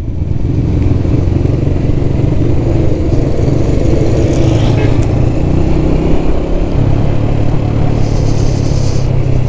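A 125cc single-cylinder four-stroke motorcycle engine running steadily while the bike is ridden, heard from the rider's helmet with a steady rumble of road and wind noise.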